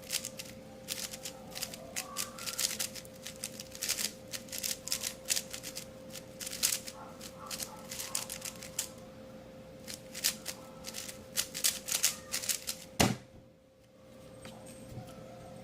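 Magnetic Yuxin Blue 4x4 speedcube turned fast: rapid, irregular plastic clicking and clacking as the layers snap through turns. About 13 seconds in there is one sharp thump, the loudest sound, and the turning stops.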